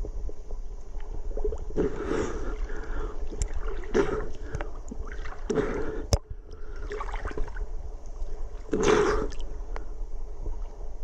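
River water splashing and sloshing against a camera held at the surface, in irregular bursts a second or two apart, over a low steady rumble. There is a single sharp click about six seconds in.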